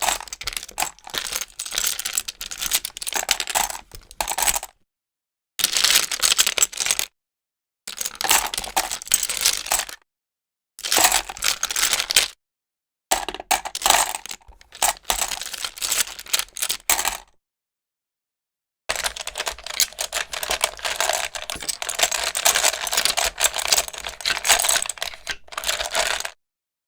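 Rummy tiles being shuffled: dense, rapid clattering clicks of tiles knocking together, in six separate takes with short silent gaps between them, the last and longest about seven seconds.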